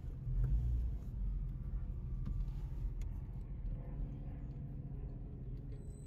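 Low rumble of a car, loudest in the first second and then steady.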